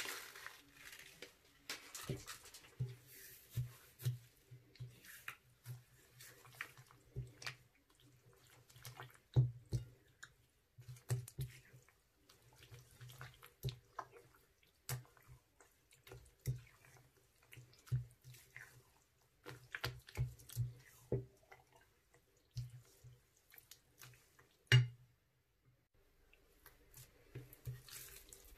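Thick, glossy slime being stirred and kneaded by hand, making irregular wet, sticky clicks and pops, with one louder pop about three-quarters of the way through.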